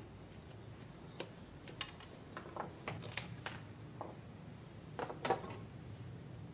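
A series of light, irregular clicks and knocks from small hard objects being handled, with a louder cluster of knocks about five seconds in.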